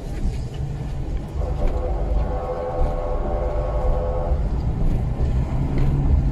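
Steady engine and road rumble heard from inside a moving car, with a vehicle horn held for about three seconds in the middle.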